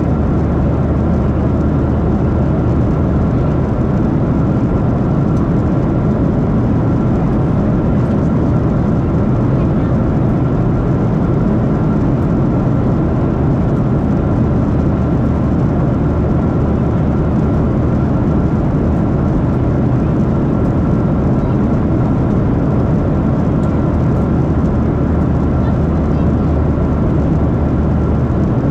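Steady cabin noise of a Boeing 737-700 in flight, heard from a seat over the wing: a deep, even rush of its CFM56-7B jet engines and the airflow past the fuselage, with a faint steady high hum on top.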